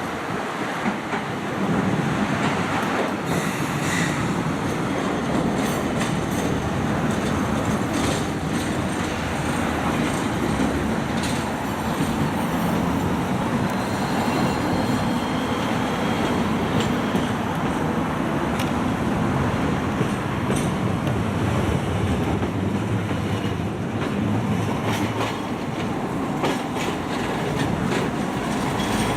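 A rail vehicle running past at close range: a steady rumble of wheels on the track, with irregular clicks over the rail joints and a few brief high squeals, one about four seconds in and more around the middle.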